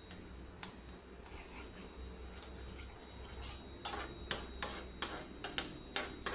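A cooking utensil knocking and scraping against a frying pan as garlic is stirred into melting butter, a quick run of short strokes starting about four seconds in. Before that only a faint steady background with a thin high whine.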